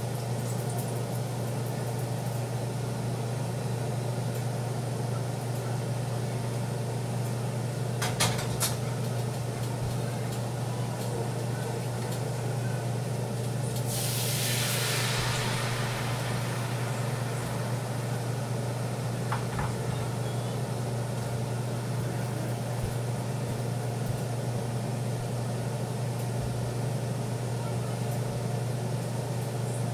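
Pancake batter poured into a hot pan sizzles loudly for about two seconds, roughly halfway through, over a steady low hum. There are a couple of sharp knocks of the pan about a quarter of the way in.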